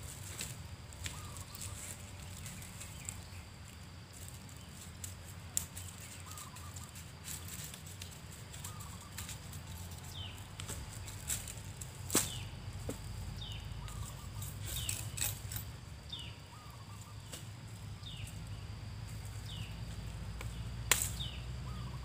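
Machete cutting and splitting oil palm frond stalks: sharp cracks and taps at irregular intervals, the loudest about twelve seconds in and near the end. A bird calls over it, a short falling note repeated about once a second through the second half, over a low steady rumble.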